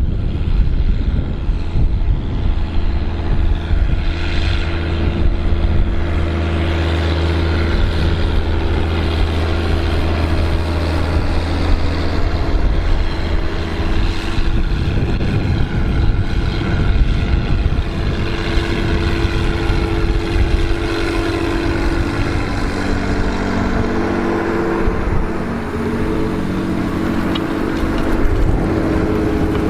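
John Deere tractor engine running steadily while pulling a plough, its note changing about halfway through from a deep hum to a higher steady tone.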